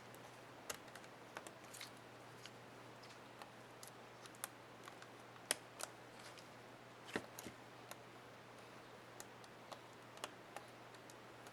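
Faint, irregular small plastic clicks and taps of a laptop keycap being handled and fitted onto an HP ENVY 15 keyboard, over a faint steady hum. The loudest clicks come about halfway through.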